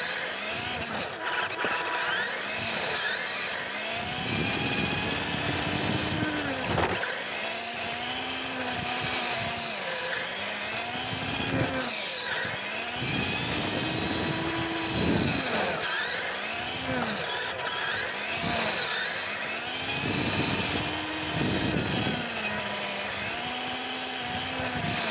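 Electric motor and gears of a 1/10-scale WPL RC kei truck whining as it drives, the pitch rising and falling over and over as the throttle is opened and eased, heard close from a camera mounted on the truck.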